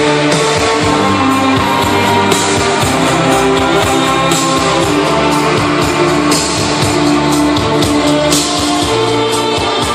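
Loud music with a prominent guitar, playing continuously.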